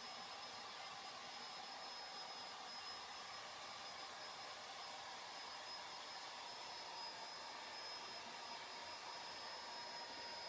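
Hair dryer running steadily: an even airy hiss with a thin high whine.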